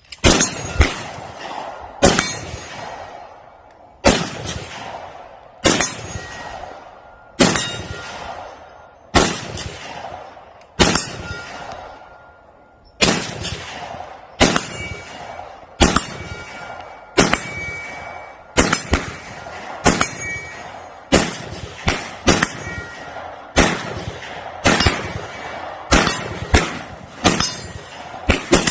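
Shots on a pistol range, one every second or two and coming faster in the second half, each followed by a metallic ring as of a steel target being hit.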